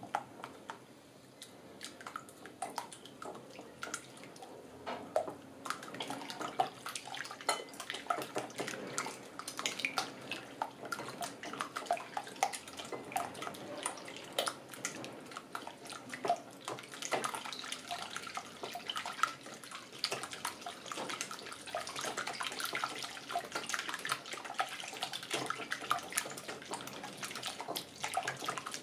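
A silicone-coated balloon whisk beating a runny egg mixture in a cut-glass bowl: rapid, irregular wet sloshing with light clicks of the whisk against the glass.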